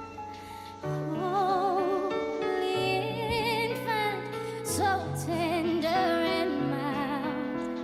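Background music: a song with a woman's voice singing held, wavering notes over steady bass notes.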